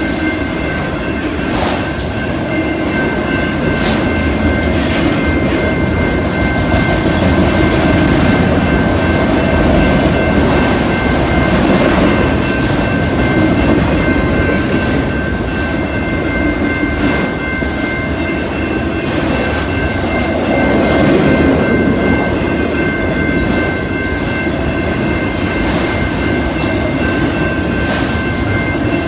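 Freight train of autorack cars rolling past: a steady rumble of steel wheels on rail with irregular clicks as the wheels cross rail joints. A steady high ringing tone sits over it.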